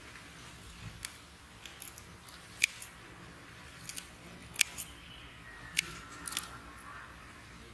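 Scissors snipping: a series of sharp, irregularly spaced snips, about six to eight over several seconds, as okra pods are cut from the plants.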